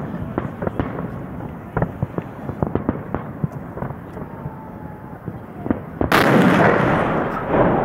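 Holiday fireworks salute: a run of sharp bangs as shells burst overhead. About six seconds in, a much louder, dense crackling burst lasts about a second and a half.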